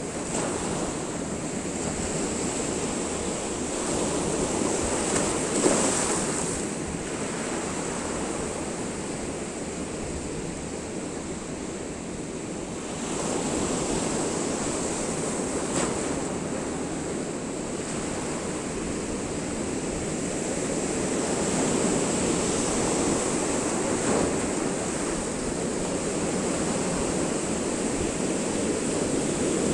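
Sea surf: waves breaking and washing up against a concrete-block seawall, a steady rush that swells and eases every few seconds.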